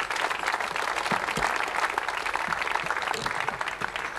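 Audience applauding: many hands clapping in a dense, even patter that eases a little near the end.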